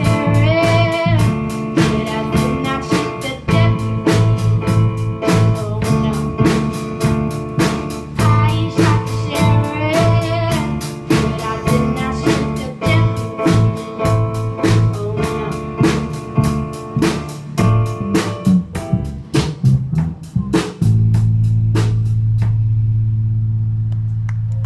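Young band playing a song live: strummed acoustic guitars, bass, keyboard and a drum kit keeping a steady beat, with a girl singing in places. About 21 seconds in the band stops on a final low chord that rings on as the drums fall silent.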